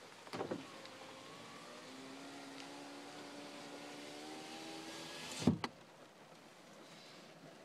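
A car's power window motor whirs as the glass winds up: a steady whine, rising slightly in pitch for about four seconds, with a knock just before it starts. It ends in a louder thump as the glass seats at the top.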